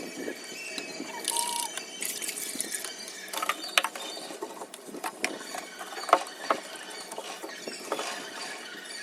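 Irregular clicks and knocks with a few short scraping strokes: fridge shelves, drawers and containers being handled and scrubbed during cleaning.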